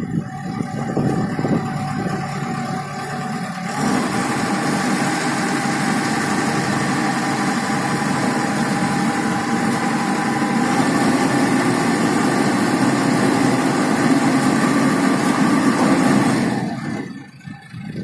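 AIMIX AS2.6 self-loading concrete mixer's engine running. It works harder from about four seconds in, with a steady whine over it, while the mixing drum swings round. It eases off near the end.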